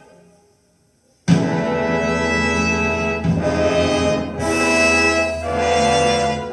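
Recorded music played through a hi-fi system's loudspeakers: one passage fades out to a second of near silence, then the next begins suddenly and loudly with brass instruments to the fore.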